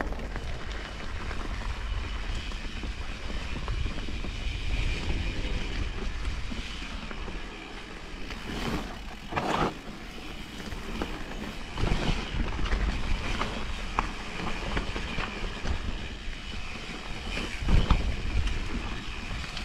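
Vitus Mythique 29 mountain bike ridden along a dirt singletrack trail: steady tyre rumble with wind buffeting the microphone, and sharp knocks and rattles from the bike over bumps, the loudest near the end.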